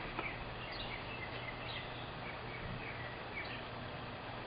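Outdoor ambience: small birds chirping in short falling notes, repeated every half second or so, over a steady background hiss. A couple of light clicks at the very start.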